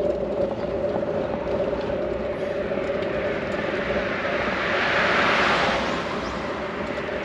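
A vehicle passing by, swelling and fading about five seconds in, over a steady mechanical hum.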